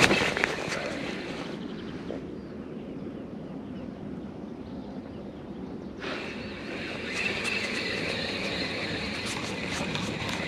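A spinning-rod cast: a sudden rush as the line pays out, fading over about a second and a half. From about six seconds comes the steady whir and fine ticking of the spinning reel being wound in to work the jig bait.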